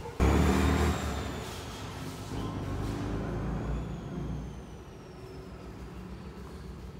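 A road vehicle passing by: it starts loud, then fades over a few seconds while its pitch slowly sinks.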